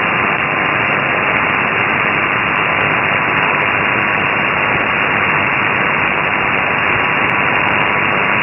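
Shortwave static from an ELAD FDM-S2 software-defined receiver tuned to the 40-metre amateur band in lower sideband, heard between transmissions. It is a steady hiss cut off above about 3 kHz by the receive filter, with a faint steady whistle near 1 kHz.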